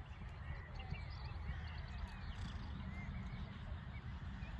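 Wind rumbling on the microphone, with small birds chirping repeatedly.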